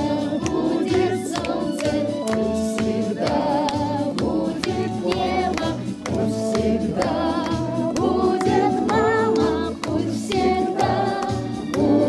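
Saxophone playing a melody with vibrato over a recorded backing track with a steady bass beat and sustained backing voices or chords.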